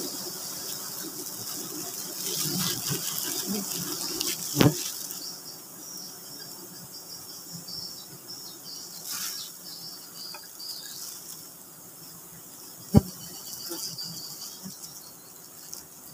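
Swarm of giant honey bees buzzing around an opened wild comb, a steady high insect drone. Rustling and a knock come in the first five seconds, and a single sharp knock about 13 seconds in is the loudest sound.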